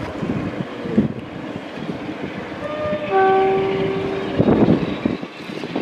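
Train's two-tone horn: a short high note, then a longer low note held for over a second, over the steady rumble of the train on the rails. A louder rush of train noise follows near the end.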